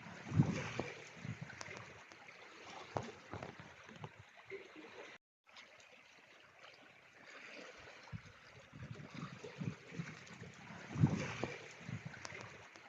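Gusty wind buffeting the microphone: irregular low rumbling surges over a steady hiss, with a brief dropout about five seconds in.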